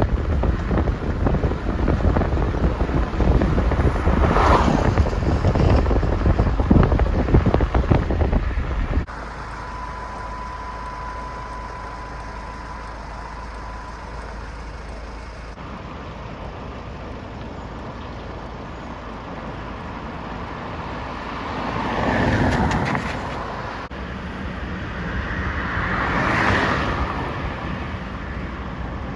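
Outdoor field audio: wind buffeting the microphone for the first nine seconds or so. After a sudden cut comes a quieter steady outdoor hum with a faint steady tone for a few seconds, and later two vehicles pass, each swelling and fading.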